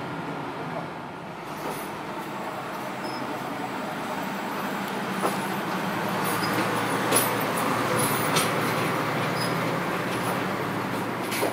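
Sri Lanka Railways Class MT 875 railcar approaching and passing close, its engine running with a steady low drone that grows louder toward the middle. A few sharp clicks from the running gear come over it as it goes by.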